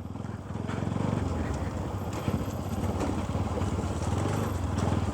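Bajaj Pulsar NS200's single-cylinder engine running steadily at low revs as the motorcycle is ridden slowly along a dirt trail.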